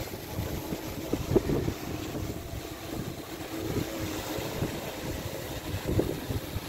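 Gusty wind buffeting the microphone with a low, uneven rumble, over the steady hum of a large multirotor drone's propellers as it hovers against the strong wind.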